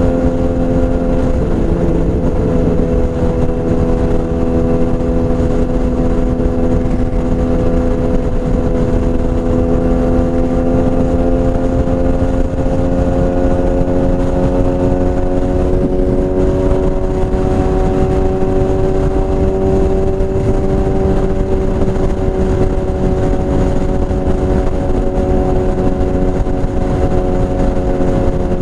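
BMW S1000RR inline-four with a full Akrapovič exhaust running at steady revs under way. Its pitch climbs slowly for most of the stretch, then eases slightly near the end.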